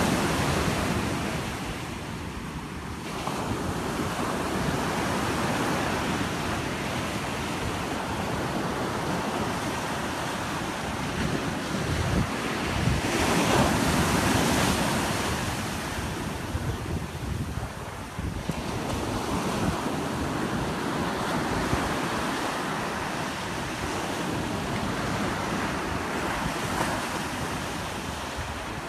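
Ocean surf breaking and washing around a boat stranded in the shallows, with wind buffeting the microphone. The rush swells and fades, and the loudest wave comes about halfway through.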